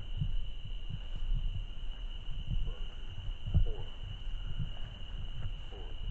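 Crickets keep up a steady high chorus. Irregular low thumps run underneath it, the loudest about three and a half seconds in.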